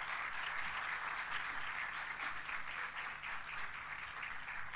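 Audience applauding, a dense steady clapping that thins slightly near the end.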